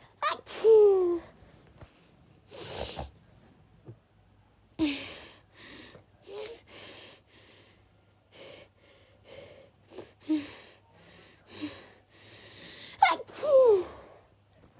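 A person in a sneezing fit: a loud sneeze with a falling cry about half a second in, several smaller sneezes and sharp breaths through the middle, and another loud sneeze with a falling cry near the end.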